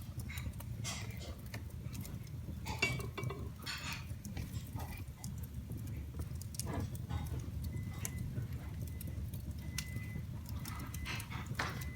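Wood fire in a fireplace crackling, with irregular sharp pops and snaps over a steady low rumble of the flames. Two brief faint high whistles come about two-thirds of the way through.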